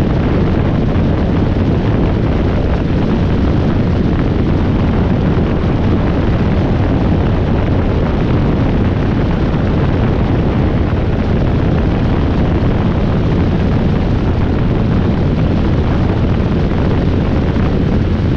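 Robinson R22 helicopter in flight: the steady, loud drone of its rotor and piston engine, mixed with wind rush on the microphone.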